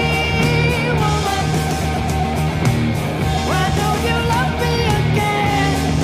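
Heavy metal band playing an instrumental passage: held electric guitar notes with several upward bends over bass guitar and drums.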